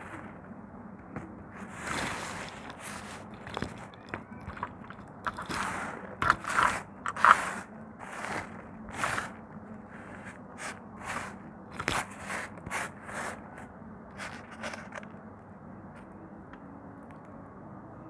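Dry soap crunching and scraping in a rapid, irregular series of crisp crackles, which die away in the last few seconds.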